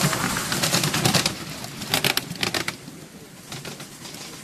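Miniature railway train running, heard from the passenger cars: a dense rattle and clicking of wheels on the track. It thins to a few separate clicks about two seconds in, then grows quieter.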